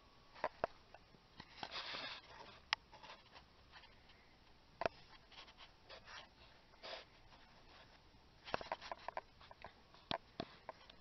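Scattered light clicks and rustles of gloved hands handling a car's rear brake caliper and rotor, with a short breathy rush about two seconds in and a quick run of clicks near the end.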